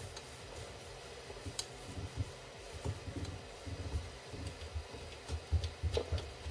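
Soft irregular rubbing and light knocks from paper being slid under a 3D printer's nozzle and its control knob being turned, over a faint steady fan hum.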